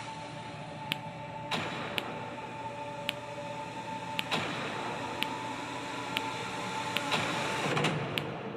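Sharp plastic clicks, about ten of them at irregular intervals, as snap-together building-block figure parts are pressed and clipped into place.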